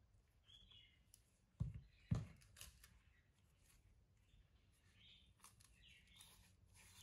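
A bunch of ripe bananas set down on a kitchen countertop with two dull thumps about half a second apart, followed by faint rustling and crackling as a single banana is handled and its peel is broken open at the stem.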